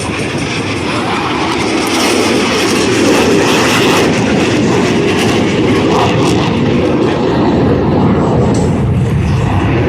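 Loud jet noise of two Blue Angels F/A-18 Super Hornets on a fast opposing pass, building over the first three seconds and then holding steady.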